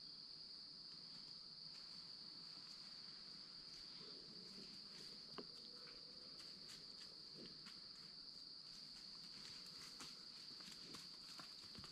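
A steady, high, unbroken chorus of insects singing in the woods. From about four seconds in there are faint scattered ticks and rustles, the loudest a single tick about five seconds in.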